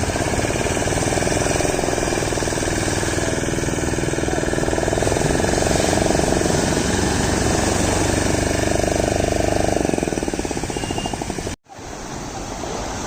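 An engine running with a fast, even knocking beat. It fades after about ten seconds and cuts off abruptly.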